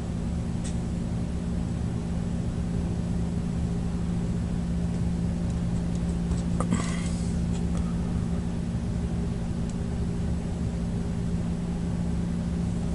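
A steady low hum, with a brief rustling scrape about halfway through.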